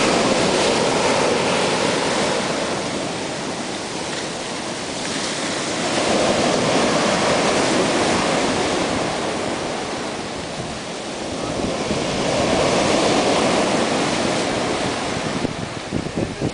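Ocean surf breaking and washing up a sandy beach, the rush of water swelling and fading about every six seconds.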